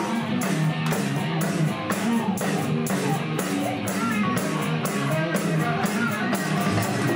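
Live band music led by guitar strumming, with a steady beat.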